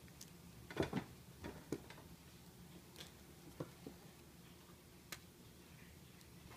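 Scattered light knocks and clicks as cats move about a wire-frame hammock bed on a wooden floor, the loudest cluster about a second in and single knocks after.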